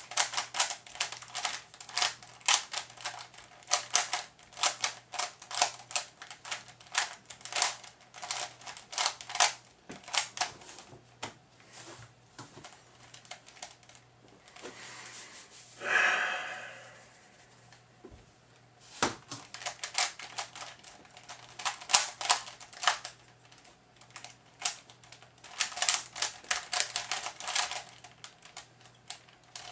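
Type A 3x3 speed cube being turned fast by hand: rapid plastic clicking and clattering of its layers, in runs of several seconds with short pauses between. A breathy rush lasts about two seconds midway.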